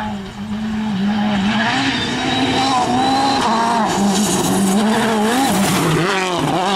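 A Citroën DS3 WRC's 1.6-litre turbocharged four-cylinder rally engine revs hard as the car comes through a gravel corner and passes close by. The note climbs and drops repeatedly with throttle and gear changes, over the hiss of gravel spraying from the sliding tyres.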